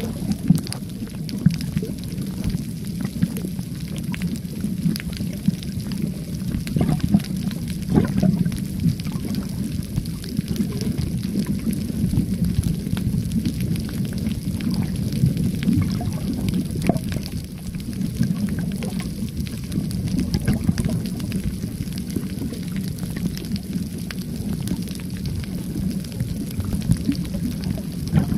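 Muffled underwater ambience picked up by a submerged camera over a coral reef: a steady low rumble of moving water, with scattered faint clicks.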